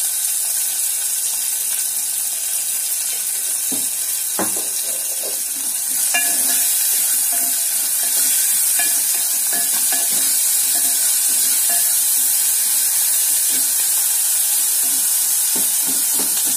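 Sliced onions and green chillies frying in hot oil with mustard seeds and cumin, a steady sizzle, stirred with a wooden spatula that scrapes and knocks against the metal pot. The sizzle gets louder about six seconds in.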